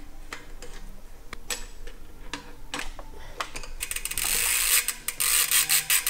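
Bicycle rear wheel being fitted into the frame's dropouts with scattered metallic clicks, then about two seconds of rapid ticking from the rear hub's freewheel pawls as the wheel turns.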